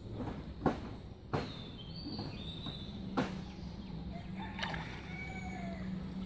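Pond water sloshing and splashing as a triangular bamboo push net is pushed and lifted through shallow water by someone wading, with four sharp splashes.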